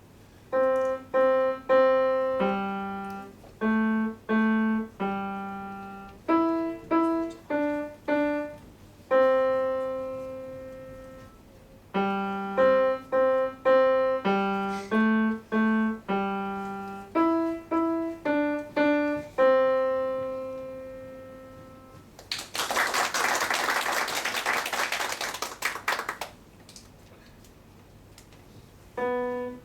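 Piano playing a simple piece in short phrases of separate notes and two-note chords, each note ringing and dying away. Then about four seconds of audience applause, and the piano starts again at the very end.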